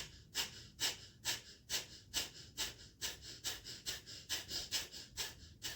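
Kapalbhati done fast: a woman's short, forceful exhalations through the nose, a little over two a second, each a brief puff of breath, with the in-breaths passive and barely heard.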